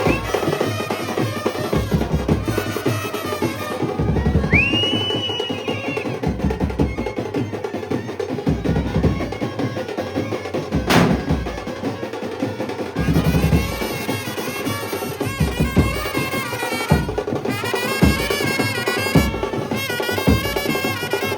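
Procession brass band playing, with dense, steady drumming throughout; a wavering wind melody rises over the drums in the second half. A single sharp crack sounds about halfway through.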